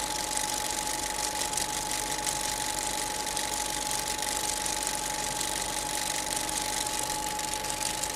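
Jet engine running steadily: an even rushing hiss with a high whine held at one steady pitch.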